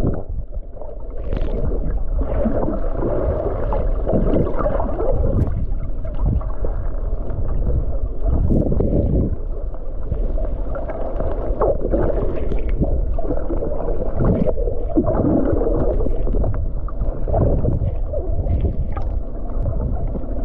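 Steady rumble and rush of a tour boat under way at sea: its engine running, with water washing along the hull and irregular splashes.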